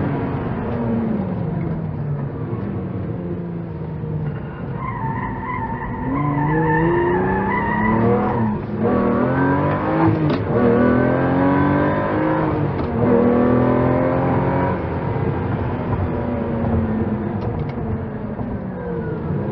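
Lamborghini supercar engine revving hard and accelerating, its pitch climbing and dropping again through several gear changes. A few sharp cracks come near the middle.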